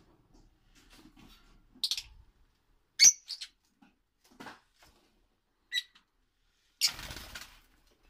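Lovebirds (Agapornis) giving short, sharp, high-pitched chirps, a handful spaced a second or two apart, the loudest about three seconds in, with a longer, harsher call near the end.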